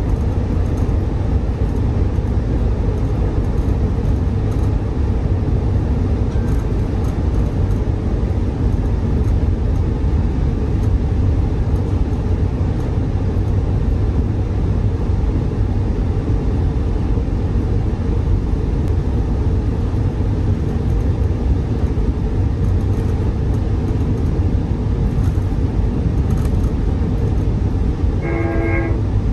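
Steady low rumble of a Trinity Railway Express commuter train, heard from inside the passenger coach. Near the end a short pitched tone with several overtones sounds once, for about a second.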